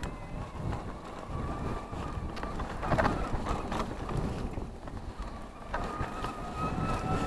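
Electric mountain bike motor whining, its pitch creeping slowly upward, over the rumble and rattle of tyres on a dirt singletrack and wind buffeting the microphone. A louder rustling burst comes about three seconds in.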